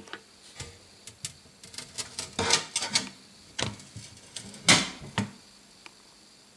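Handling noise at a glass terrarium: irregular clicks and knocks, with two brief louder scrapes about two and a half and nearly five seconds in.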